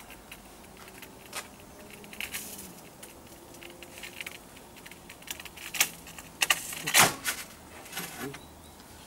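Scattered clicks, taps and rattles of large-format porcelain tile and a Rubi Slim System tile cutter being handled after a cut, growing busier toward the middle, with one sharp loud crack about seven seconds in.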